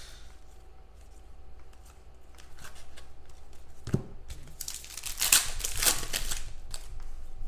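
Foil trading-card pack wrapper being torn open and crinkled, most heavily about five to six and a half seconds in, after a single short knock near four seconds; lighter crinkles of handling before that.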